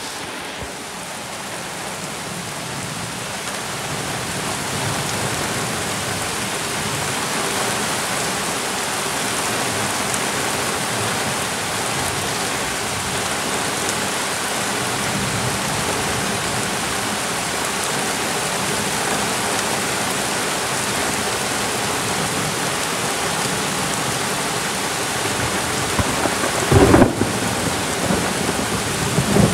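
Torrential rain pouring down: a steady dense hiss of the downpour, with drops clicking against the microphone. The rain swells over the first few seconds and then holds steady. A few sharp knocks come near the end.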